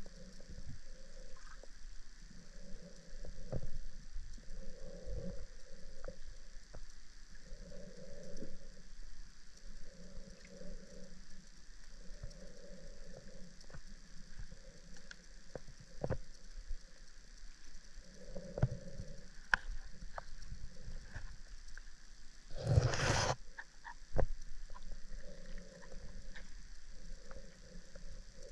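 Underwater drone's thrusters running in short, repeated pulses as it manoeuvres underwater, with scattered clicks and one loud rushing burst a few seconds before the end.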